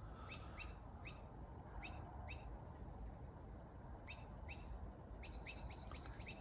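Small bird calling: short, sharp chirps that drop quickly in pitch, often in pairs, with a quicker run of them near the end, over a low steady background rumble.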